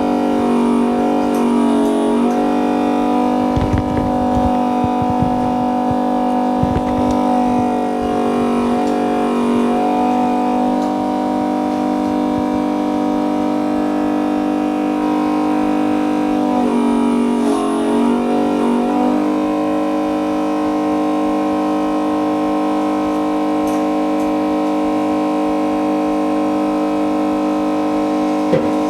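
Built-in vacuum pump of a 5-in-1 phone LCD separation machine running with a steady hum, its pitch wavering briefly three times as the load changes. A few low knocks sound a few seconds in.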